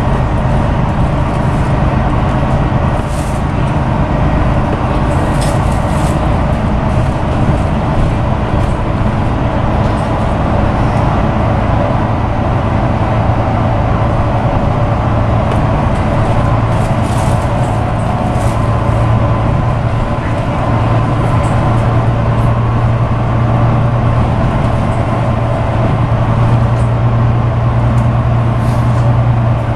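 Volvo B9TL double-deck bus's Volvo D9B six-cylinder diesel engine running at a steady cruise, with tyre and road noise, heard from inside the upper deck. The low engine drone holds steady, growing a little stronger in the last third, with occasional brief clicks from the body.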